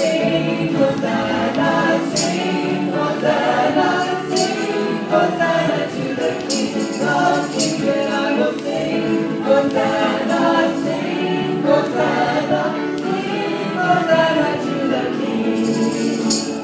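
Live gospel worship song: a group of voices singing together to grand piano accompaniment, with short sharp hits at irregular intervals.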